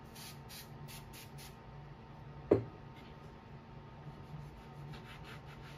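Aerosol cleaner sprayed onto a cleaning cloth in about five short hissing bursts, followed by one sharp knock about two and a half seconds in.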